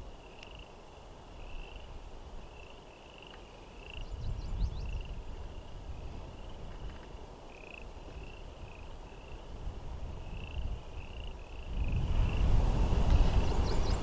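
Frogs calling: a steady chorus of short creaking notes, about one or two a second. A low rumble of wind on the microphone comes in near the end.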